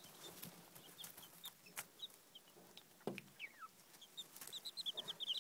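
Baby chicks peeping: short high chirps scattered throughout, one longer falling peep a little after three seconds in, and a quick run of peeps near the end. A few clicks and a knock about three seconds in.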